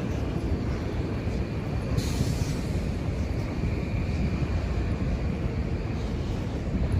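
Street traffic: the steady low rumble of a large vehicle going by, with a sudden short hiss about two seconds in and a faint whine after it.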